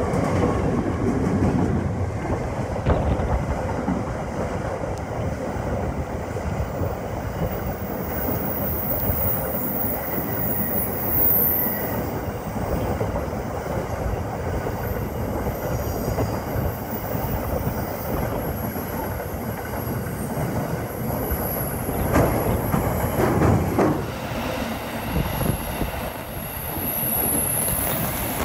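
Freight train wagons rolling past, their wheels clicking over the rail joints in a continuous run, with a faint high wheel squeal through most of the pass and a louder stretch about three quarters of the way through.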